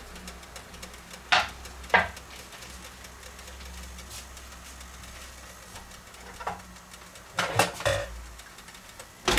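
A steady low hum, with a few sharp clicks and knocks through the middle. Near the end comes a louder clatter as the metal lid of a Tefal OptiGrill contact grill is lifted.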